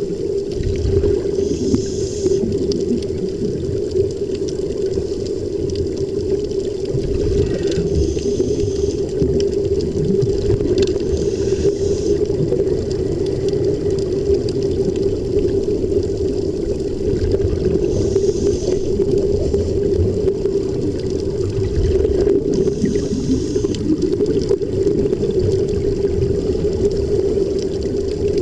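Underwater sound picked up through a camera housing: a constant steady hum over a low rumble, with a brief hiss of air bubbles from the divers' air-fed helmets about every five seconds.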